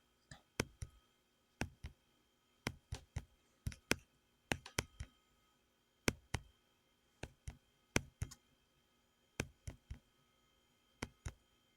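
Computer mouse or keyboard clicking irregularly, about twenty sharp clicks, many in quick pairs or triples with short gaps between, as tool prices are looked up.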